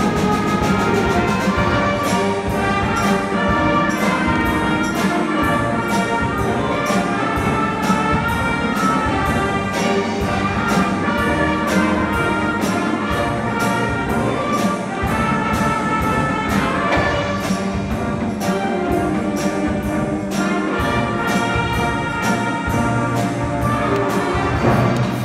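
Concert band playing, brass and woodwinds together over a steady percussion beat.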